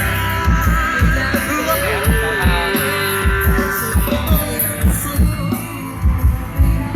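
Recorded music played loud through a PA sound system, its heavy bass beats coming from 18-inch bass cabinets driven by an NPE F8000 power amplifier. The bass beats fall about twice a second under a held melody line.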